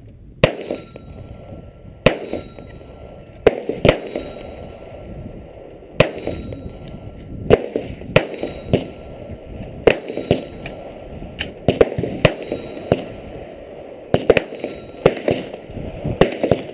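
Gunfire at an outdoor shooting range: about twenty sharp shots, irregularly spaced and some louder than others, each with a short echo after it. The shots come from more than one gun firing at once.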